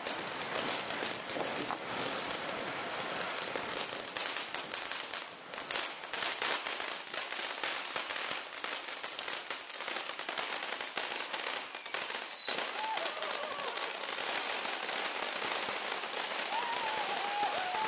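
Several ground fountain fireworks burning together, with a steady hiss of spraying sparks and a dense run of sharp crackles from crackling stars. A short falling whistle comes about twelve seconds in.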